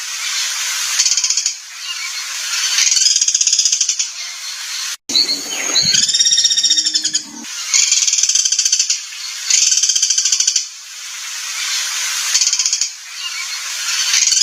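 Recorded songbird 'materi kasar' (harsh training call): repeated harsh, buzzy rattling phrases about a second long, coming every two seconds or so. About five seconds in the sound breaks off for an instant and a different, more tonal call with a lower part plays for about two seconds before the rattling phrases resume.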